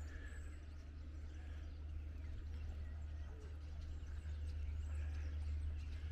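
Birds chirping in the trees, faint short calls scattered throughout, over a steady low rumble.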